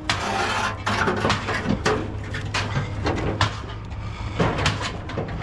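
Scrap metal pieces clanking and clattering as they are handled and tossed, with many short knocks over a steady low hum.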